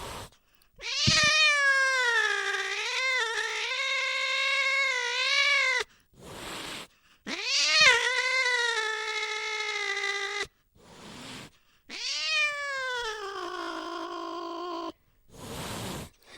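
An angry cat yowling in three long, wavering calls, each starting high and sliding down, with short hisses between them.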